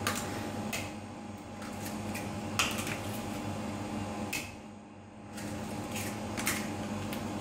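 Eggs cracked against the rim of a stainless steel container: several short, sharp taps spread out over a steady hum.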